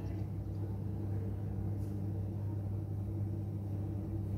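Dishwasher running just after starting its wash cycle: a steady low hum.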